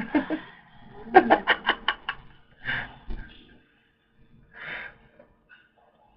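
A man laughing: a quick run of about six laughs about a second in, then a couple of shorter breathy laughs.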